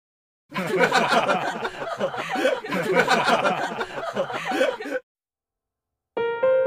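Chuckling laughter: a run of short laughs that starts about half a second in and cuts off abruptly at about five seconds.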